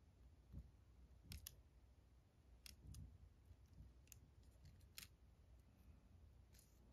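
A handful of faint, sharp ticks and light taps as fingertips and nails press small sequins onto a paper origami wreath, with near silence between them.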